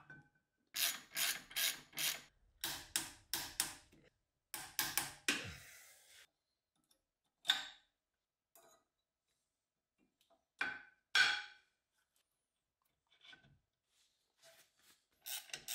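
Hand tools working on a car's rear brake assembly: groups of short strokes, about two or three a second, for the first few seconds, then scattered single knocks and clicks, and a quick run of strokes starting again near the end.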